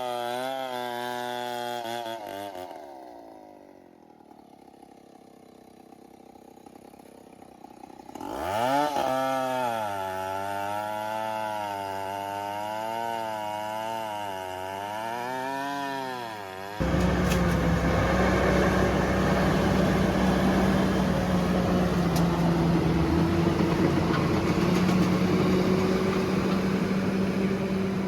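A two-stroke chainsaw running at high revs, its pitch wavering as it cuts. It drops back to a quiet idle, then revs up sharply about eight seconds in and cuts again with its pitch rising and falling. About seventeen seconds in, it gives way abruptly to the louder, steady running of a heavy machine's engine.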